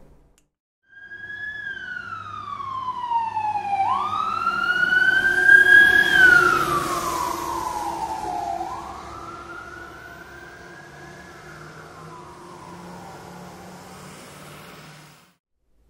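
Fire truck siren wailing, its pitch sliding down, up, down, up and down again in slow sweeps, loudest about six seconds in and fading toward the end. A low steady hum runs underneath.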